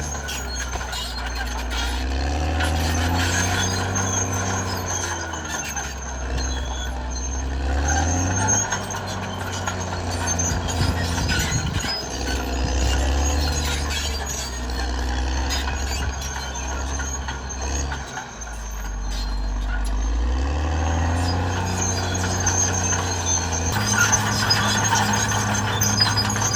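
Caterpillar D6R XL bulldozer's diesel engine working under changing load, its pitch rising and falling several times, dipping low about two-thirds through and stepping up near the end, with a high squeal at times over it.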